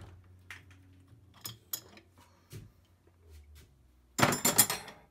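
Scattered light metallic clicks and clinks of tools and parts being handled, then a loud burst of metal clattering about four seconds in.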